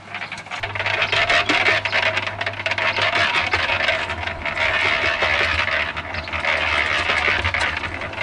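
Small electric concrete mixer running, its drum turning with a steady motor hum while a mix of crushed stone, sand and cement tumbles inside with dense gritty scraping and rattling.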